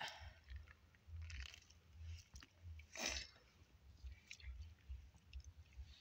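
Faint wet squelching and crackling of mud and weeds as a hand digs into a muddy puddle, in scattered short bursts, the loudest about three seconds in.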